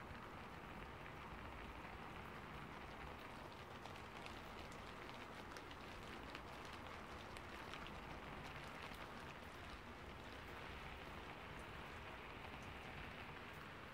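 Faint, steady rain: an even hiss with many small, scattered ticks of drops landing.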